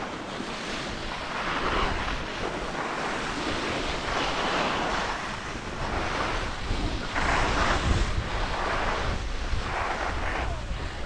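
Skis hissing and scraping over snow through a run of turns, with wind rushing across the microphone; the hiss swells every two to three seconds.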